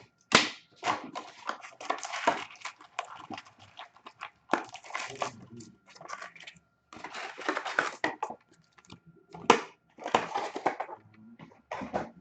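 Crinkling and tearing of foil trading-card pack wrappers and rustling cardboard as a box of hockey card packs is opened, in irregular loud bursts with sharp clicks.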